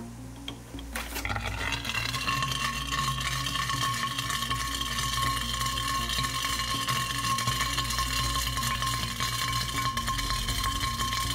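A chunk of calcium carbide knocks into a large glass flask of water about a second in. Then a steady fizzing hiss builds as acetylene gas bubbles off and burns inside the flask, with several steady high tones ringing through the hiss.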